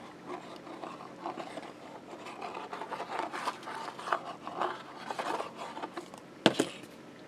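Plastic glue bottle squeezed while its nozzle scrapes and rubs along an MDF kit piece as lines of glue are laid, in irregular scratchy bursts. A single sharp click stands out about six and a half seconds in.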